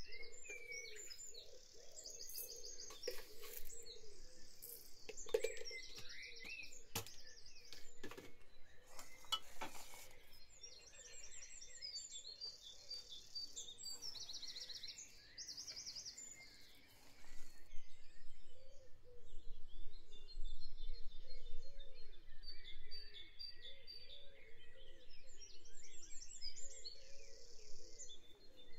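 Dawn chorus: many songbirds singing at once, with chirps and rapid repeated trills, growing louder a little past halfway.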